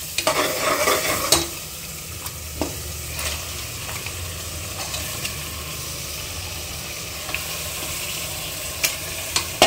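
Raw mutton pieces going into hot oil and masala in a pressure cooker, sizzling. Louder for the first second and a half as the wet meat goes in, then a steady sizzle with a few sharp clicks near the end.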